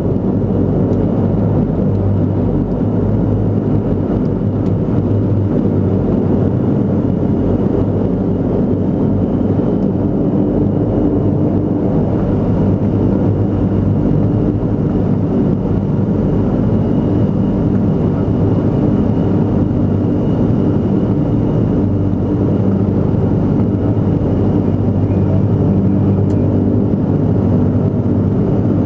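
Antonov An-22's four Kuznetsov NK-12 turboprops with contra-rotating propellers, heard from inside the cockpit as a loud, steady drone with a constant low hum during the landing.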